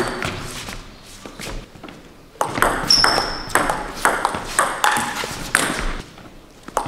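Table tennis ball clicking off the bats, one with an andro Rasanter R45 rubber, and bouncing on the table in a short exchange of pushes close over the net. The clicks are sparse in the first couple of seconds, then come quickly one after another.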